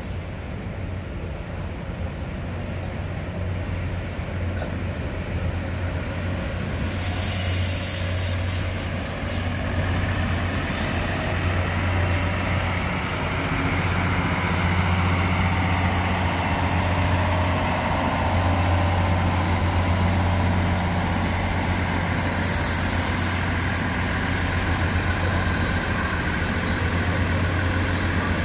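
Taiwan Railway diesel multiple-unit express train running in on its underfloor diesel engines, a steady low drone that grows louder as the cars draw alongside. Short bursts of air hiss come about seven seconds in and again past twenty seconds.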